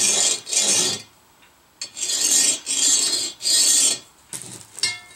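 Pencil scratching across brown kraft paper while tracing a circle, in five quick strokes of about half a second: two, a short pause, then three in a row.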